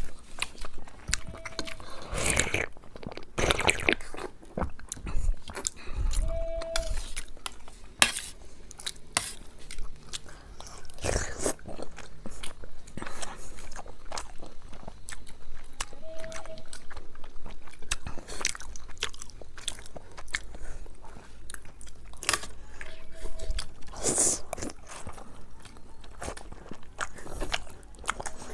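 A person biting and chewing soft Indian sweets such as rasmalai, with frequent short wet mouth clicks and smacks.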